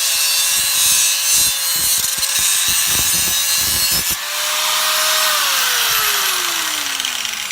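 Handheld angle grinder with an abrasive cutting disc cutting through square steel tube, a steady motor whine under harsh grinding hiss. About four seconds in the disc comes off the steel, the whine rises briefly, then falls steadily as the grinder is switched off and spins down.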